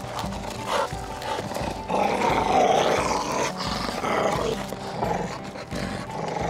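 Dogs growling while tugging on a metal furniture frame in a game of tug-of-war, loudest about two to three seconds in, over background music.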